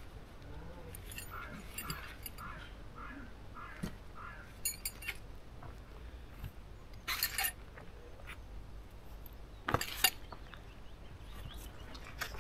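Sharp metallic clinks of camping gear being handled while a tent is taken down: a few small clicks about five seconds in, then two louder clinks about seven and ten seconds in. In the first few seconds a bird calls in a short run of about seven repeated notes.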